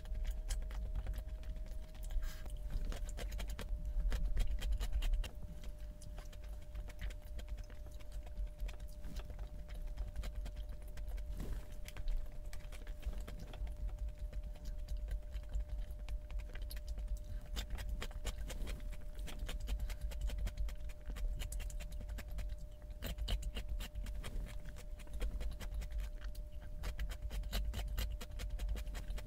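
Eating sounds: irregular clicks and smacks of chewing and utensils, over a faint steady hum.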